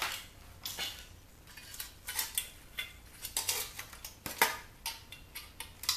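Small metal parts and tools clinking and clicking as an electronic unit is taken apart by hand: irregular light knocks, the sharpest about four and a half seconds in.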